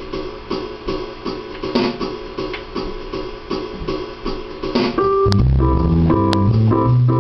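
Roland RD-300GX digital piano's built-in swing rhythm playing, a steady drum beat of about two strokes a second. About five seconds in, bass notes and piano chords played on the keys come in over the beat.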